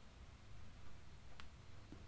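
Quiet small-room tone with a steady low hum and a single faint click about one and a half seconds in.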